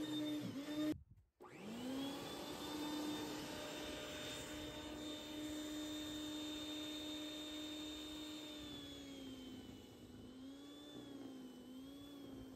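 Snow Joe SJ619E 14.5-amp electric snow thrower running with a steady whine from its motor and auger. It cuts out briefly about a second in, then spins back up to speed. From about nine seconds its pitch drops a little and wavers.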